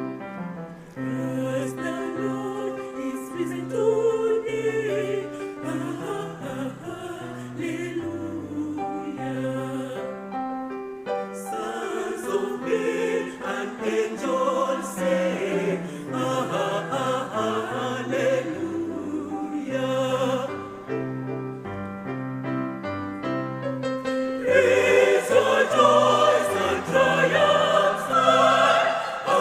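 A choir singing in harmony, growing louder near the end.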